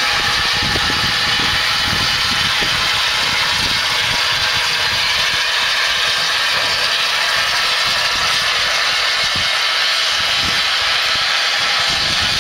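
Narrow-gauge steam tank locomotive hissing steadily as steam blows off, with irregular low rumbles underneath.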